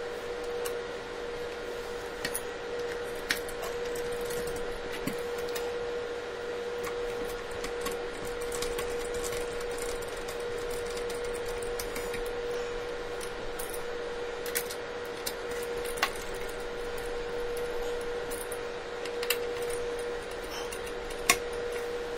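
Scattered light clicks and taps of small screws and a small screwdriver being handled on a hard-drive enclosure while it is screwed shut. A steady hum sounds underneath.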